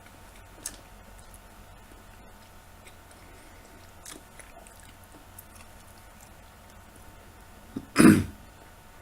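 A person eating raw mushrooms, with faint chewing and small mouth clicks, then about a second before the end one sudden, loud, short throat sound from the eater, a cough or a burp.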